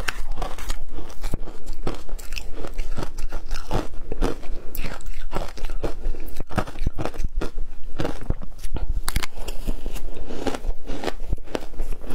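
Shaved ice being bitten and chewed by the mouthful, a dense run of many irregular, crisp crunches.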